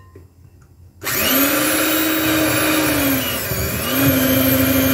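Electric hand mixer switched on about a second in, its beaters whipping butter in a bowl with a steady motor whine. The pitch sags briefly partway through, then picks up again.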